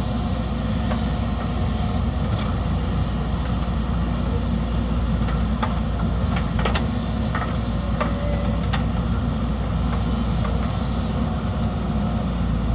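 Heavy diesel engine of a JCB backhoe loader running steadily, with a few sharp clicks and clanks scattered through the middle.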